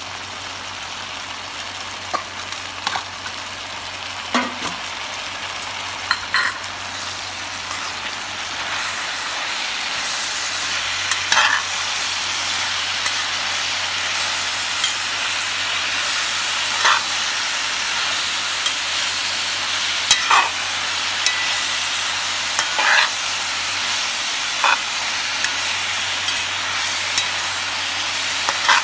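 Choy sum and other greens sizzling as they are stir-fried in a pan, a steady hiss that grows louder about ten seconds in. A metal utensil clinks and scrapes against the pan every few seconds as the greens are turned.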